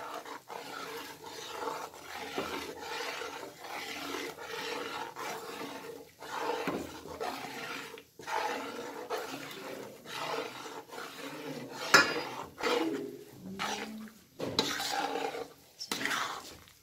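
Metal spatula stirring and scraping gram flour into ghee in a metal kadhai, a run of irregular scraping strokes against the pan, with one sharp clank about twelve seconds in.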